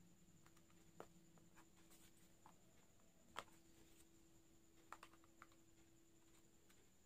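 Near silence, with a few faint clicks and taps from handling a USB cable and a Seagate Backup Plus Slim portable hard drive while the cable is plugged in.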